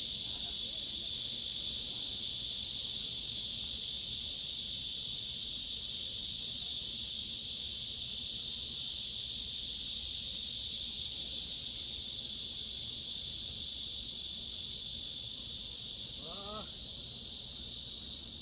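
Cicadas buzzing in a steady, dense, high-pitched drone with little sound below about 3 kHz. Near the end a short run of lower chirping notes cuts through.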